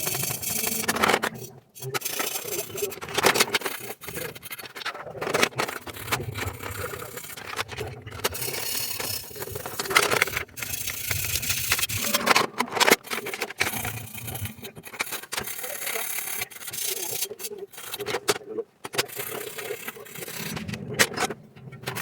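Irregular rubbing and scraping with scattered knocks and clicks, from hands working on the amplifier's parts.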